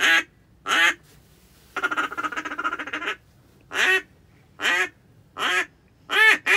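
Mallard duck call blown by a hunter: single spaced quacks, a fast chattering feed call about two seconds in lasting over a second, more single quacks, then a quick string of quacks starting near the end.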